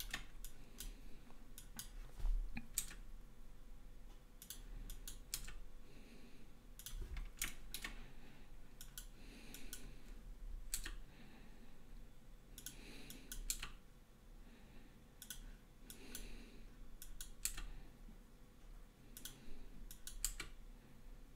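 Faint, irregular clicks of a computer mouse and taps on a keyboard as the curve's points are grabbed, moved and placed.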